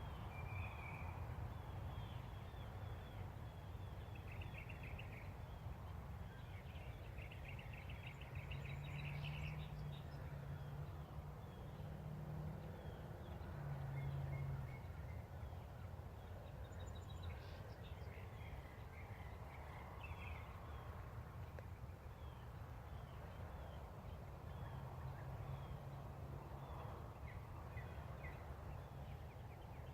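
Outdoor ambience: scattered bird chirps and calls over a steady low rumble. A low hum comes in from about 8 to 15 seconds in and again briefly later.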